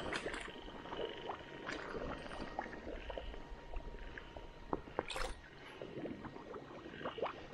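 Frogs calling at a night-time pond, with soft splashes and sloshing of someone wading through shallow water a few times.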